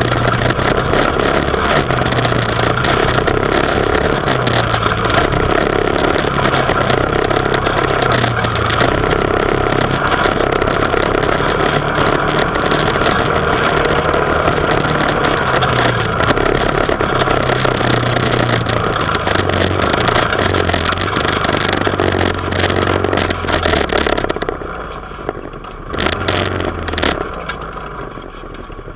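New off-road machine's engine being run in while driving over sand, its pitch stepping up and down as speed changes, under a steady rushing noise. Near the end it slows and the rushing noise drops away, with one brief rise in engine sound about two seconds later.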